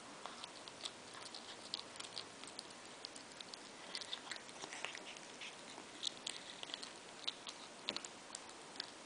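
Maine coon cat chewing a mouse: a run of faint, quick, irregularly spaced clicks and crunches.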